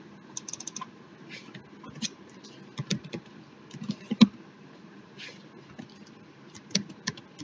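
Typing on a computer keyboard: irregular keystroke clicks, with a quick run of several taps near the start.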